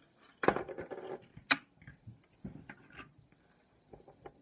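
Small plastic toy pieces knocking and clicking on a table as they are handled and set aside. A clatter comes about half a second in, a sharp click at about a second and a half, then softer taps and rustles.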